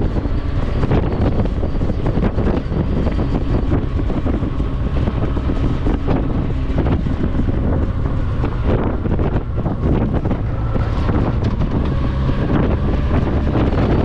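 Strong gusty wind buffeting the microphone during a ride: a loud, dense, steady rumble, with faint vehicle noise beneath it.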